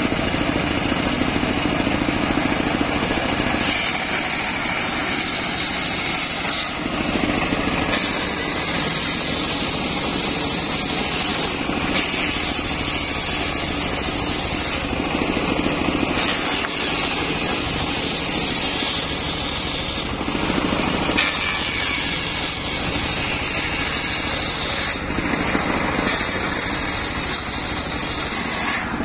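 Homemade table-mounted circular saw ripping waru wood into battens: the drive runs steadily while the blade adds a higher cutting whine in stretches of a few seconds, about six cuts with brief breaks between.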